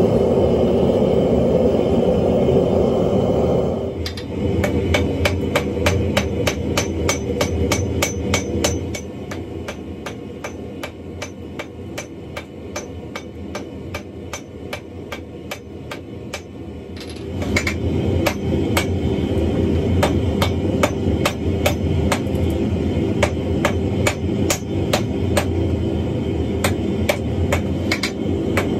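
A gas forge's steady roar, then a hand hammer striking a white-hot wrought iron billet on a steel anvil in rapid, regular blows that ring out. The forge's roar comes back behind the hammering about two-thirds of the way through.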